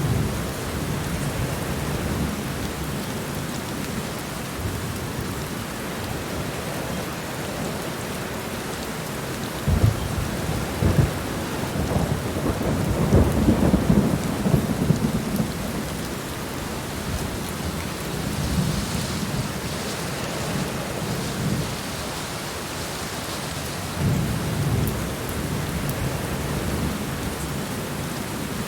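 Heavy rain falling steadily in a rainstorm, with low thunder rumbling through it. The thunder swells loudest about ten to fifteen seconds in, with a few sharp cracks at its start, and rolls again near the end.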